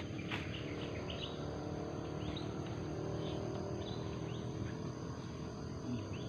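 Rural outdoor ambience: a steady high insect buzz, typical of crickets, with short bird chirps scattered through and a single click just after the start.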